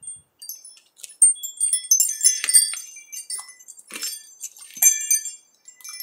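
Wind chime ringing in the breeze: many high, overlapping notes struck irregularly, with the strongest strikes about a second in and again around two and four seconds.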